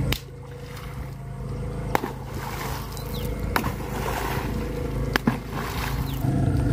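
Wooden canoe paddle slapped hard onto the water surface, about four splashing strikes roughly one and a half to two seconds apart, beating the water to drive catfish into a set net.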